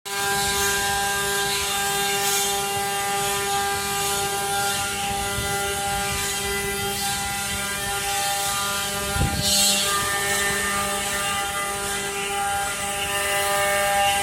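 CNC stone-carving machine running: a steady machine whine made of several held tones over a fluctuating hiss of cutting, with one low thump about nine seconds in.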